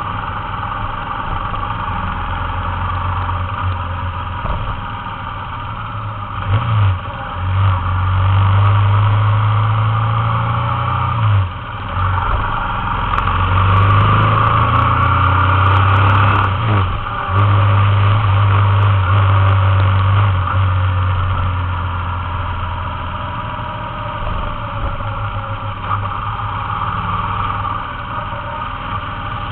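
Motorcycle engine running under way, pulling through the gears: several brief dips in the engine note with a gear change each time in the middle, then a steadier, lighter-throttle run.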